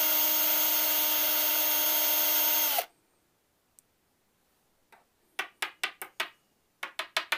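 Cordless drill with a glass bit running at a steady pitch against a glass test tube, then stopping suddenly about three seconds in. Near the end, a quick run of about nine short sounds as the tube is handled.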